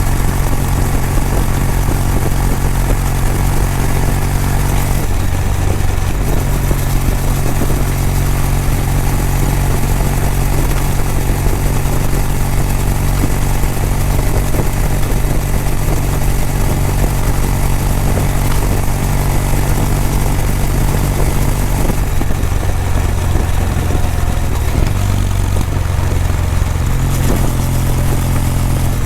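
Kawasaki W800 air-cooled parallel-twin exhaust while riding along at a steady pace. The engine note shifts a few times, once about a fifth of the way in and twice near the end.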